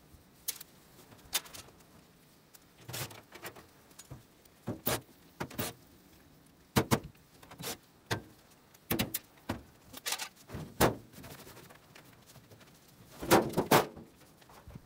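Irregular clanks, knocks and rattles of a clothes dryer's sheet-metal cabinet as it is taken apart, the loudest cluster near the end as the top panel is pulled open.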